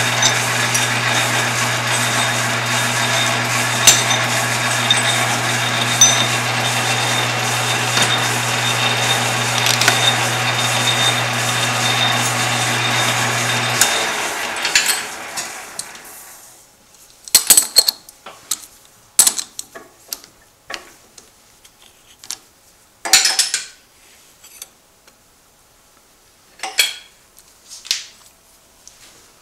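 Metal lathe running with a centre drill in the tailstock chuck at the end of a thin brass rod, a steady hum that fades out about 14 to 16 seconds in as the lathe is switched off and spins down. Then several separate metallic clanks and clicks as the chuck and workpiece are handled.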